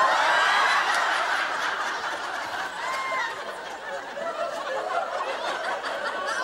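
Studio audience laughing: a big burst of laughter, loudest at the start and slowly dying down over several seconds.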